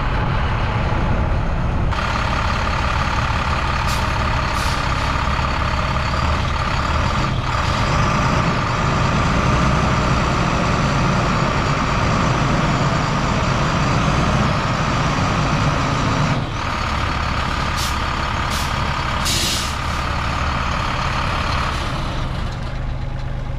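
Diesel mini excavator working hard in a track-pulling test, with a steady high whine that comes in about two seconds in and a few sharp clanks. The engine note drops about two-thirds of the way through.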